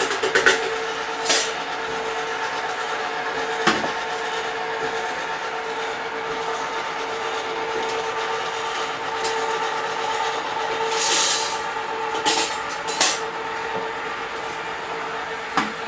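Steady hum of electric popcorn machines running off a power inverter, with a few sharp clinks and a short rattling rush as unpopped kernels are poured into the hot kettles.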